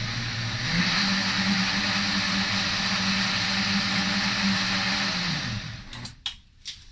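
Hamilton Beach high-power blender running on hot water and dish soap to clean its jar, the motor whirring steadily and rising in pitch about a second in. Near the end the motor spins down and stops, followed by a few light clicks.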